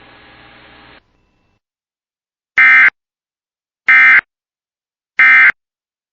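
Emergency Alert System end-of-message data tones: three short, loud, identical bursts of digital data noise about 1.3 seconds apart, the signal that closes the alert. A faint hiss runs through the first second before them.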